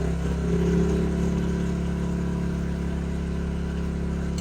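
An engine running steadily, its pitch lifting a little in the first second and then holding, with an abrupt change near the end.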